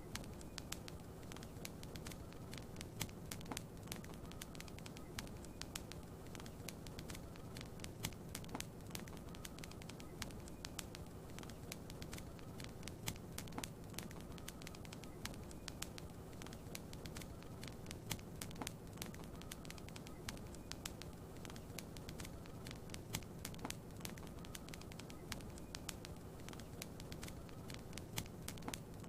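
Wood fire crackling in a fireplace: frequent small, sharp pops at irregular intervals over a steady low rumble.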